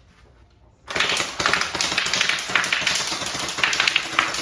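Electric gel bead blaster (SplatRBall) firing a continuous automatic burst: after about a second of quiet, a rapid, rattling run of clicking shots lasting about three and a half seconds.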